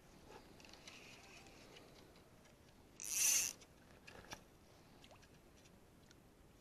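Spinning fishing reel and line: a short zipping rush about three seconds in, cutting in sharply and lasting about half a second, with faint clicks around it.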